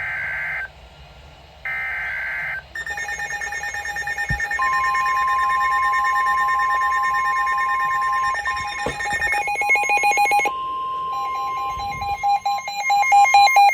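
NOAA weather radios going off for an alert. There are two short bursts of warbling data tones (the end of the SAME header), then the radios' electronic alarm beeping and a steady long alert tone near 1 kHz, the 1050 Hz weather alert tone. Faster beeping joins about two-thirds of the way through.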